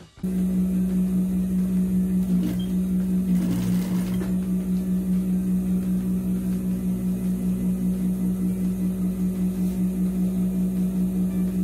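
Industrial straight-stitch sewing machine running steadily while stitching a shortened garment strap: a constant loud hum with a slight regular pulsing that starts abruptly just after the start.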